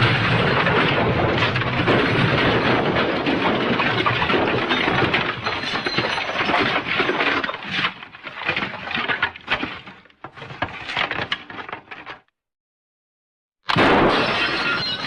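The MGM 'elephant smash' crash sound effect: a sudden loud smash of breaking glass and debris that goes on tumbling and clinking, thinning out over about twelve seconds before it cuts off. After a short silence, a second smash starts near the end.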